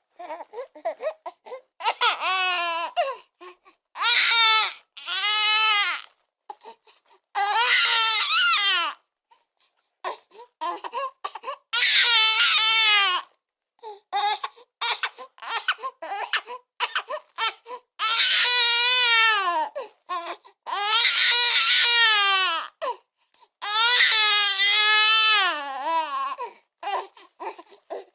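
Newborn baby crying hard: repeated long wails of one to two seconds each, with wavering pitch, broken by short gasping breaths and sobs between them.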